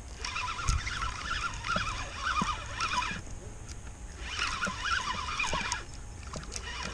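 Spinning reel being cranked to bring in a hooked catfish: the reel's gears and line whir in spells of one to three seconds with short pauses between them.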